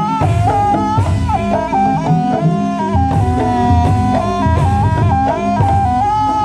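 Jaranan Buto music: a loud wind-instrument melody moving in ornamented stepped notes, over continuous drumming and a steady low tone.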